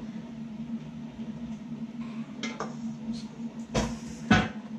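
Two sharp knocks about half a second apart near the end: a metal cake tin full of batter being tapped down on the counter to knock out air bubbles. A few light clicks come before them over a low steady hum.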